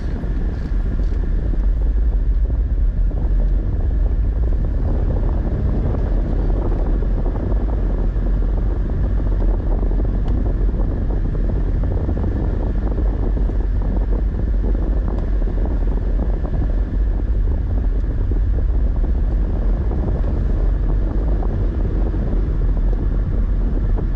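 Steady low rumble of a vehicle driving along a road, with wind buffeting the microphone.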